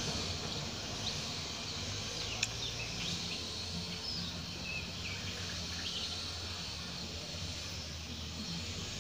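Outdoor ambience: a steady high insect hiss with scattered short bird chirps over a low hum, broken by one sharp click about two and a half seconds in.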